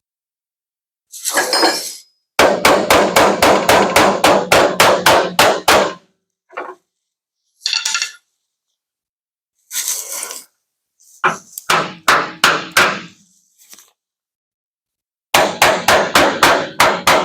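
Body hammer beating on the steel bed panel of a Ford F-350 Super Duty pickup, working a dent out and down. It strikes in quick runs of about four blows a second, with a few single knocks and pauses between the runs.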